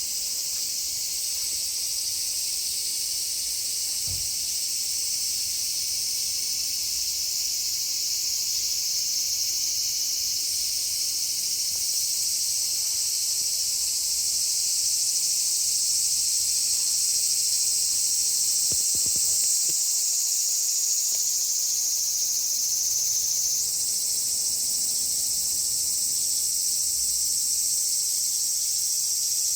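Chorus of cicadas, many singing at once in a continuous high-pitched buzz: the first mass chorus of the summer.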